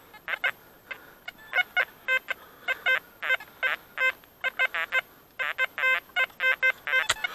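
Metal detector beeping over and over in short, irregular tones, some of them warbling, as it signals iron in the pit. A sharp click sounds near the end.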